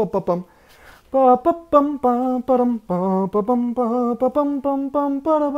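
A man singing a mariachi trumpet melody with his voice in short, accented notes with vibrato, showing how the phrases are shaped. He takes a breath about half a second in.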